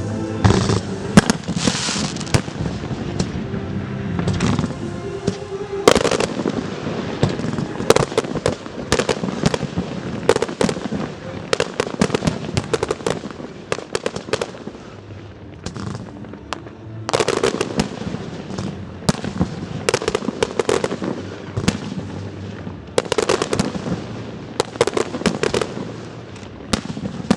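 Aerial fireworks bursting in rapid, irregular volleys of loud bangs and crackling, with heavier clusters of bursts about six seconds in, around seventeen seconds and again near twenty-three seconds.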